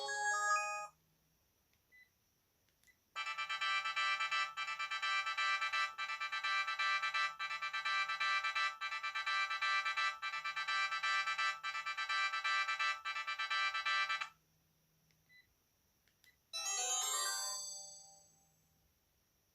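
Sharp GX1 mobile phone playing its preset ringtones through its small speaker, one after another with short gaps: the tail of one tune, then a steady pulsing ring pattern for about eleven seconds, then a short melody that fades out.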